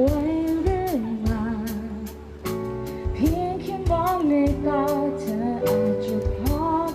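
A woman singing a slow Thai pop song, held notes with vibrato, over band accompaniment with bass and a steady drum beat.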